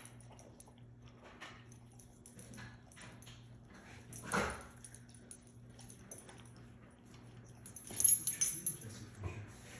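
Doberman puppy mouthing and chewing a lemon: soft chewing with scattered small clicks, one short louder sound a little over four seconds in, and a quick run of sharp clicks and rattles about eight seconds in as the lemon is pushed about, the loudest part.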